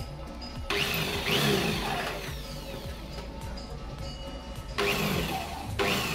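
Electric hand drill boring through the sheet-steel amplifier chassis, in a loud stretch about a second in and again near the end, over background music.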